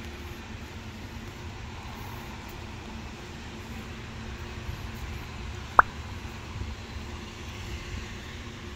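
Steady low rumble of road traffic and outdoor ambience, with one sharp, very short pop about six seconds in.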